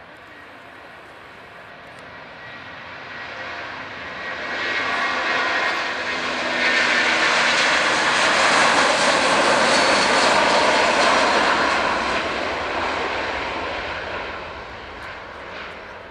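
Boeing 757-300 jet engines at take-off thrust during the take-off roll, with a steady whine in the noise. The sound swells as the airliner passes, is loudest about halfway through, and fades near the end.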